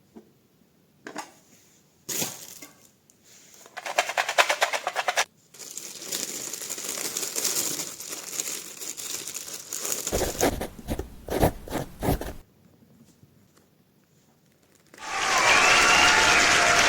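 Packing noises: a click, a rapid ripping rattle about four seconds in, then several seconds of crinkling, rustling and tearing of packing material with a few low thuds. About fifteen seconds in, loud applause and cheering start.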